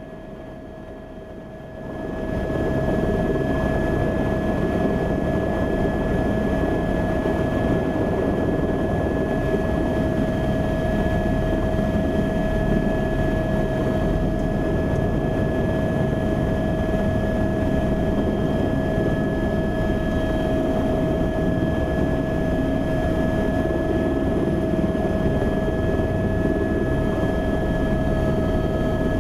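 Turbine helicopter hovering low to the ground, a steady turbine whine over the rotor and engine noise. It comes up in level about two seconds in and then holds steady.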